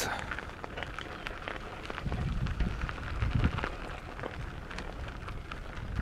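Footsteps through tall grass: rustling and scattered small clicks, with a low rumble on the microphone from about two seconds in to about three and a half.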